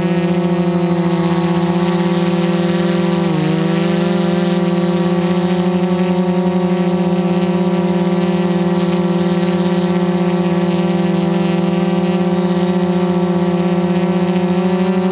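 Quadcopter's electric motors and propellers whining steadily in flight, heard close from the camera on board. The pitch dips briefly and recovers about three and a half seconds in.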